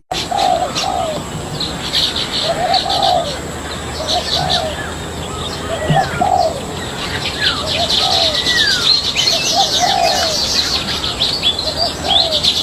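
Birds calling: a low, cooing two-note call repeats every second or two, over continuous high chirping and trilling from small birds, with a few short falling whistles.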